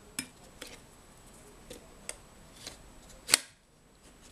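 Light clicks and taps as a homemade cassette player's metal case and parts are handled during disassembly, about six in all, the loudest a sharp click a little after three seconds in.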